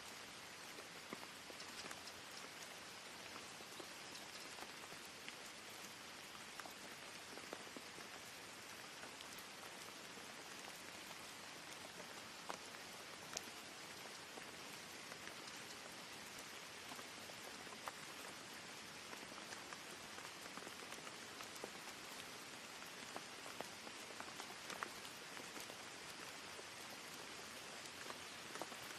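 Steady rain ambience used as a white-noise background track: an even hiss of rainfall with scattered faint ticks of single drops.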